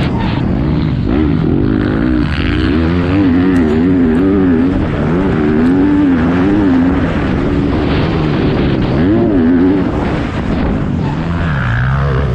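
Yamaha YZ250F motocross bike's four-stroke single-cylinder engine, revved up and down over and over, its pitch rising and falling about once a second as the throttle is worked. Near the end it settles into a lower, steadier note.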